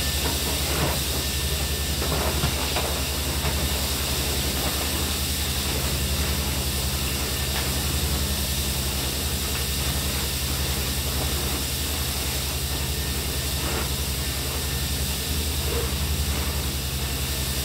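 Steady machinery drone with a constant hiss over it, from heavy equipment running on an abrasive-blasting job, such as a dust collector or compressor; the sound does not change.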